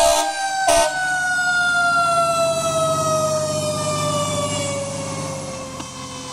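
Fire rescue truck's siren in one long tone, its pitch falling slowly and steadily, with two short horn blasts near the start. The truck's heavy diesel rumbles as it passes, then fades away.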